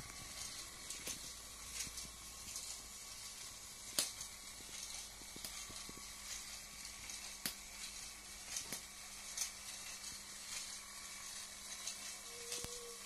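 LEGO Winter Holiday Train running on its Power Functions train motor round plastic track: a steady hiss and faint hum of the motor and wheels, with irregular sharp clicks. The loudest click comes about four seconds in.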